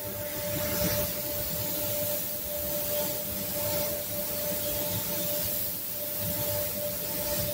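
Compressed-air hiss of a DeVilbiss gravity-feed spray gun laying down base coat, swelling and easing with each pass, over a steady hum.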